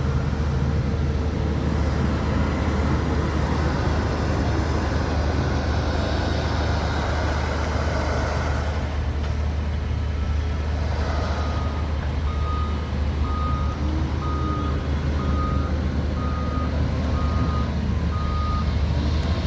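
Diesel engines of a loading shovel and tractor running steadily while they work a silage clamp. About halfway through, a machine's reversing alarm sounds a run of about eight evenly spaced beeps, roughly one a second.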